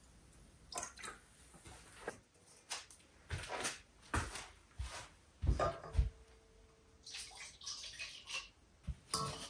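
Water splashing, with irregular knocks and clatter of things being handled in it, as when washing something in a sink. About six seconds in a brief ringing tone sounds.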